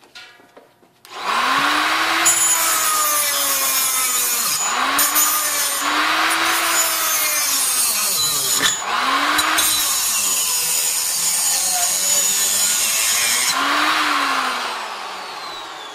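A Chicago Electric 3-inch electric cut-off tool starts about a second in, and its abrasive wheel grinds through a metal pipe. The motor's pitch sags and recovers several times as the wheel bites. Near the end the wheel breaks through and the motor winds down.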